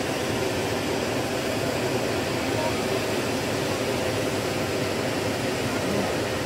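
Hand-held tube firework (tezutsu hanabi) spraying its fountain of sparks, a steady rushing hiss with crowd voices mixed in.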